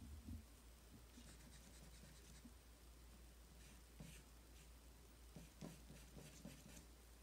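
Faint scratching of charcoal on drawing paper, in short runs of quick strokes.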